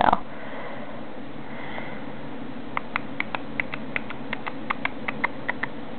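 Steady low hiss, then from about halfway in a quick, even run of light clicks, about five a second, lasting around three seconds.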